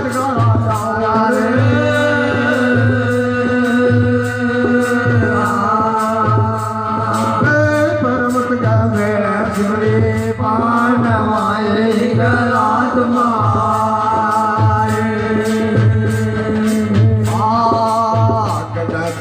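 Hindi devotional bhajan music: a melody of long, bending notes over low drum strokes about once a second and a shaker ticking about twice a second.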